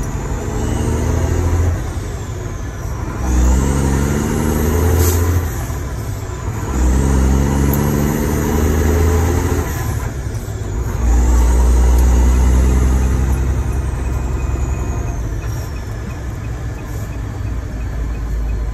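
Mack truck diesel engine pulling through the gears of an 8-speed manual transmission, heard from inside the cab. The engine note climbs under load and drops at each upshift, about four times, with a high whine rising and falling with the revs.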